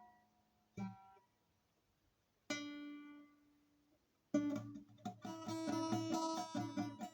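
Acoustic guitar: a few single chords struck and left to ring out, then steady rhythmic strumming starts a little past halfway.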